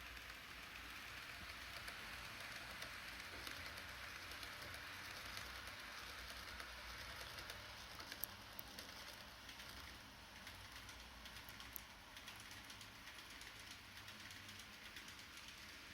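N-gauge E6 series Komachi Shinkansen model train running on its track: a faint steady whir with scattered small clicks from the wheels over the rail joints.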